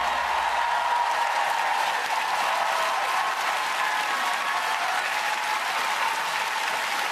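Studio audience applauding at the end of a live song, with the band's last low notes fading out about a second in.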